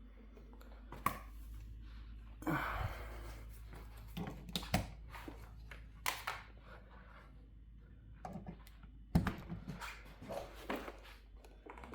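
Scattered light clicks and knocks, irregularly spaced, from hands handling the pallet jack's charger and its connectors while it is plugged in for a test, over a faint steady low hum.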